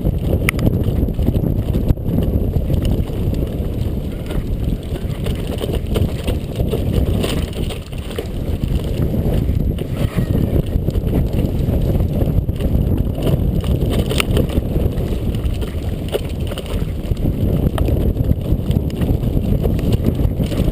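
Mountain bike riding on a dirt trail: wind rushing over the camera microphone, with tyre noise and frequent clicks and rattles from the bike.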